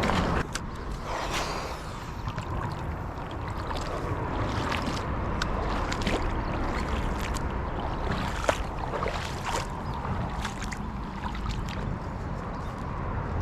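Steady rumble of traffic on a four-lane highway, mixed with running creek water, with scattered small clicks throughout.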